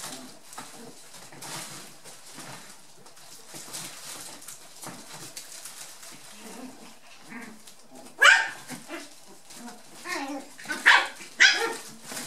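Young poodle puppies yapping in play: several seconds of quieter play sounds, then four or five sharp, high puppy barks in the last four seconds, the first rising quickly in pitch.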